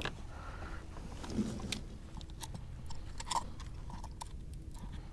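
Scattered faint clicks and light knocks, the sound of a just-landed fish and tackle being handled aboard a kayak, with a short low sound about a second and a half in.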